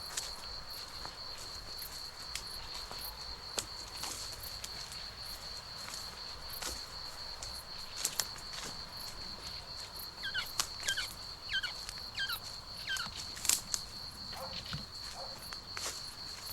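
Footsteps crunching on dry grass over a steady high-pitched insect trill. About ten seconds in, a bird calls a quick run of short descending notes.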